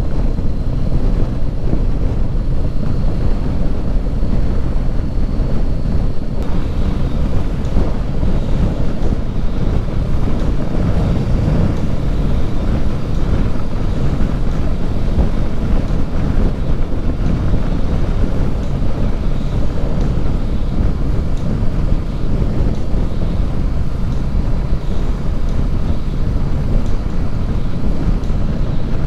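Steady wind rush on the microphone from riding at road speed on a 2019 Honda CB500X, with the bike's parallel-twin engine running underneath at a steady cruise.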